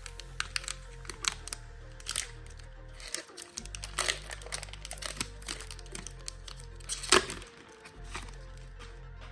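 Foil booster-pack wrapper crinkling and being torn open, a string of sharp crackles with the loudest about seven seconds in, over background music.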